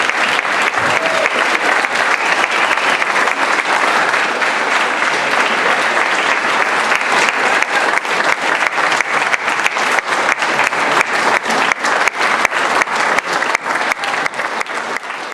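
Audience applauding after a piano performance; the clapping thins so that single claps stand out more in the second half.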